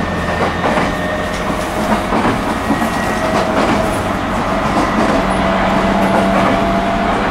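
Inside a JR East E127 series motor car running on the line: the whine of its Toyo Denki GTO VVVF inverter and traction motors rises slowly in pitch as the train gathers speed, over a steady rumble and wheel clatter on the rails.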